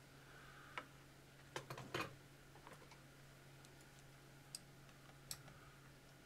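Faint, scattered clicks and taps of a screwdriver and fingers on the small drive motor of a watchmaker's lathe, the loudest a quick cluster about a second and a half in, over a low steady hum.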